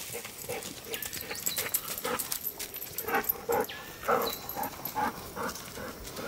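A dog whimpering in short repeated cries, a few each second.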